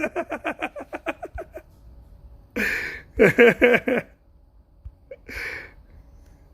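A person's voice without clear words: a run of quick laughing pulses fading out over the first second and a half, then breathy exhales with a few short mumbled sounds between them.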